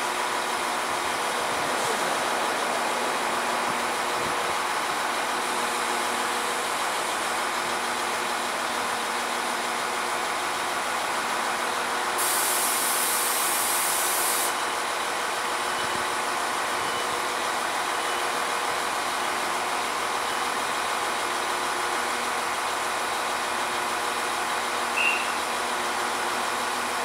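NIR CAF 4000 Class diesel multiple unit idling at the platform, a steady engine and equipment hum with several held tones. About twelve seconds in, a loud hiss lasts about two seconds.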